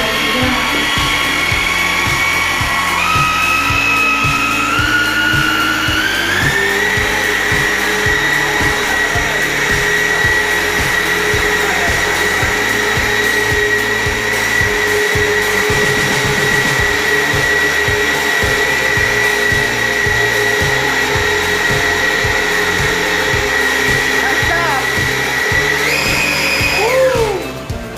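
RC tugboat motor spinning its propeller on test: a steady whine that climbs in pitch in several steps over the first several seconds, holds at high speed, then rises briefly and cuts off near the end. Background music with a steady beat runs underneath.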